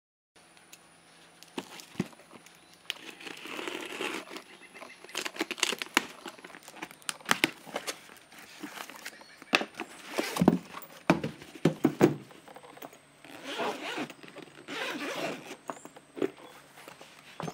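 Cardboard shipping box being unpacked by hand: packing tape slit and torn, cardboard flaps rustling and scraping, with a string of knocks and clicks as the box and the hard case inside are handled.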